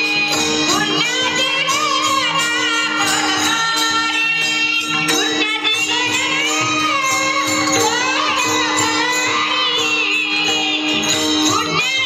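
Devotional singing over a steady held drone note, with jingling metallic percussion keeping an even beat.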